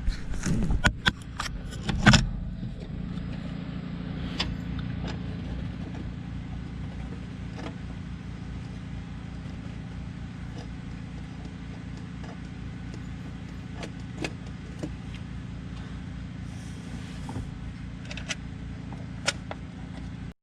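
Metal clanks and knocks as a valve cover is set down onto its new gasket, followed by scattered light clicks of handling parts and bolts, over a steady low hum.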